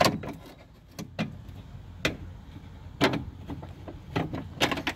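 Irregular clicks and knocks, about seven of them, of the hard plastic and metal parts of a BMW E46 door's window regulator being pushed and handled as a retaining pin is pushed out inside the door.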